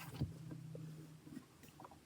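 A faint, steady low hum that stops a little over a second in, with a few light taps and clicks.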